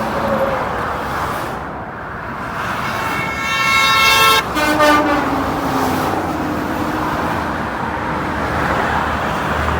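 Semi-truck horn honking over steady highway road noise. A long blast starts about three seconds in, followed by a short second blast and a lower tone that slides down in pitch as the truck passes.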